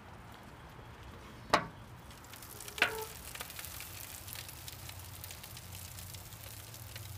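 Prime rib steak burgers sizzling and crackling on a grill, the sizzle growing louder about two seconds in. Two sharp knocks sound, one about a second and a half in and another about a second later.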